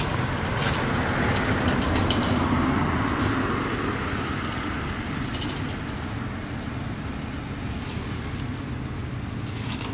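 Steady low rumbling background noise, easing slightly after the first few seconds, with a few faint clicks.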